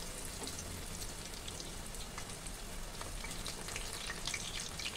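Battered jackfruit pakoras deep-frying in hot oil in a kadhai: a steady sizzle with small pops and crackles, the crackling getting busier after about three seconds.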